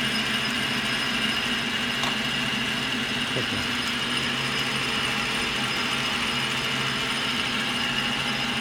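Vintage Montgomery Ward Logan belt-driven metal lathe running under power: a steady mechanical whir of turning belts and gearing, with a constant low hum and a thin high whine.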